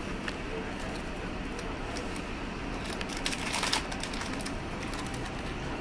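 Inside a passenger train rolling slowly along a station platform: steady running noise with scattered light clicks and rattles, and a brief burst of hiss about three and a half seconds in.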